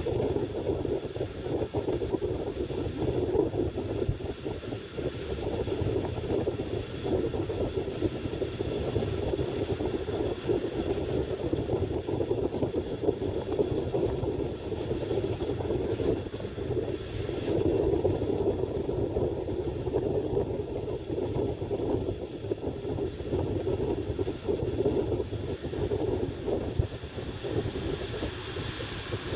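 Train running on rails: a steady rumble of wheels on track that rises and falls slightly without stopping.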